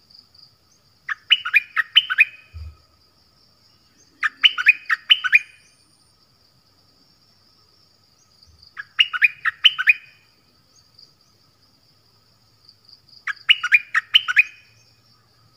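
Songbird known in southern Thailand as nok dok taeng singing its decoy song: four short phrases, each a quick run of three or four rising whistled notes, several seconds apart. A faint steady high insect buzz runs underneath.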